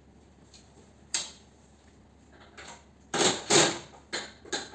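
Metal clicks and clatter from hand tools working on the sheet-metal housing of a fan coil unit: one sharp click about a second in, then a run of louder knocks and rattles in the last second and a half.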